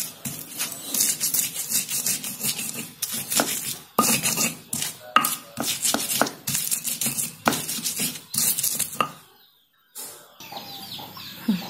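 Stone pestle grinding raw chilies, shallots and garlic for a spice paste on a flat stone mortar (cobek and ulekan): repeated gritty scraping strokes with sharp knocks of stone on stone. The grinding stops about nine seconds in.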